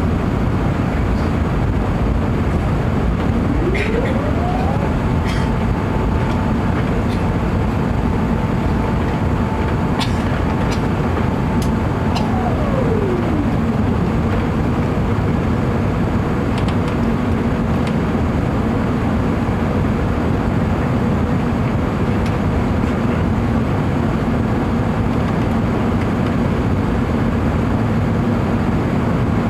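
Steady engine and airflow noise inside the cabin of an Airbus A380, with a low steady hum. About three seconds in, a mechanical whine rises in pitch, holds for about eight seconds, then falls away.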